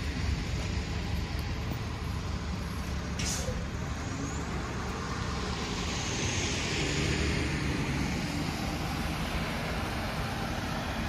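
Street traffic on wet, slushy pavement: cars passing with tyre hiss over a low engine rumble, one pass swelling loudest about six to eight seconds in. A single sharp click about three seconds in.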